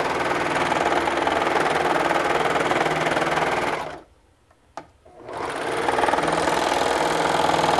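Serger (overlock sewing machine) running at a steady speed, stitching and trimming the raw edge of the fabric. It stops about four seconds in, with a single light click during the pause, then starts again about a second and a half later and runs on.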